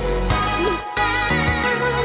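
Background music with sustained instrumental tones.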